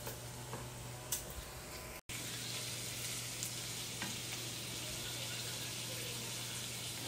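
Bacon sizzling as it fries in a non-stick pan, with a couple of sharp clicks of wooden chopsticks against the pan in the first second or so. After a brief break about two seconds in, the sizzle is louder and steady.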